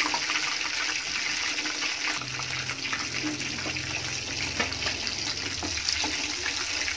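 Chicken kebab pieces deep-frying in hot oil: a steady sizzle with scattered crackles and pops, as the pieces, now cooked through on both sides, are lifted out of the oil.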